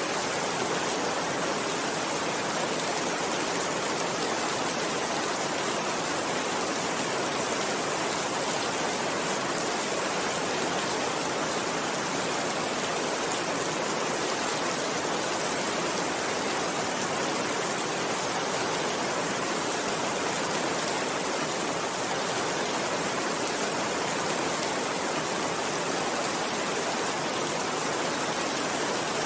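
Steady rainfall: a dense, even hiss of many raindrops with no change in strength.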